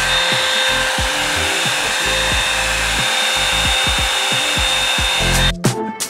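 Revlon One Step hair dryer brush running steadily: a loud airflow hiss with a motor whine, cutting off suddenly near the end. Background music with a beat plays underneath and is left on its own once the dryer cuts off.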